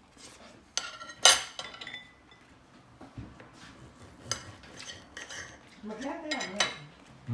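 Metal knife and fork clinking and scraping against a dinner plate while cutting a piece of grilled meat. A run of clinks about a second in includes the loudest one, which rings briefly; a few more clinks follow later.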